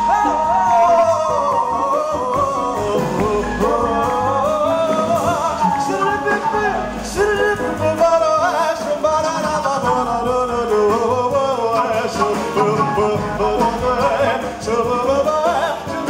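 Live jazz band: a male singer vocalising without words, with a flute weaving around the voice over piano and rhythm section.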